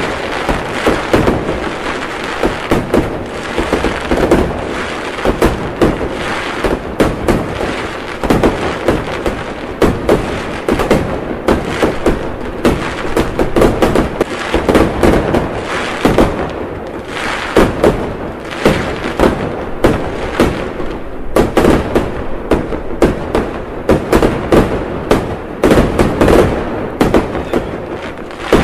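Fireworks display: a dense, unbroken barrage of bangs and crackling, many reports a second over a continuous rumble.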